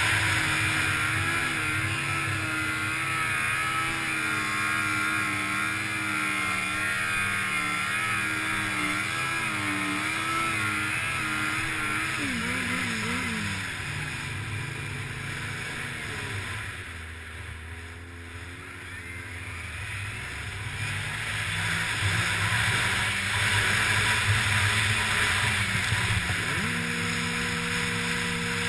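Snowmobile engine running under throttle with a wavering pitch, with a hiss of wind over it. Just past the middle it eases off and goes quieter for a few seconds, then picks up again and settles to a steady note near the end.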